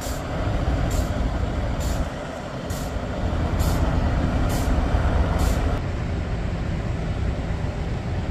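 Diesel engines of fire trucks running with a heavy low rumble. A short hiss repeats about once a second until about five and a half seconds in.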